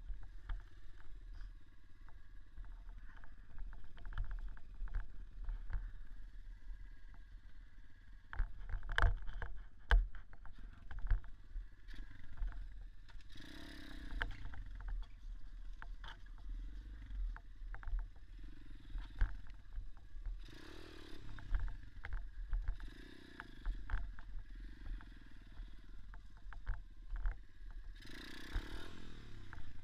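A small off-road motorcycle engine running under way, revving up in several louder bursts, with many sharp knocks over a constant low rumble.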